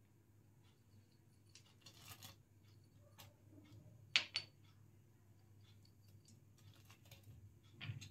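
Chopped dry fruits being added to milk in a steel kadhai: faint small clicks and taps, with two sharper clicks about four seconds in.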